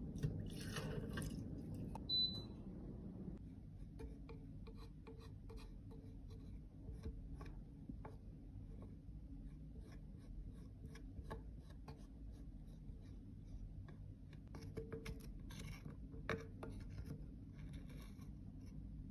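Water running over a metal spatula in a stainless steel tray for the first few seconds, with a short high squeak about two seconds in. Then a metal spatula scraping and prying crumbly hardened white powder out of a plastic compact pan, with many small scratches, clicks and taps of breaking chunks.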